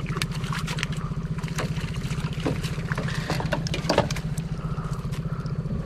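An engine running steadily with a fast, even low pulse, with scattered clicks and knocks over it, the loudest about four seconds in.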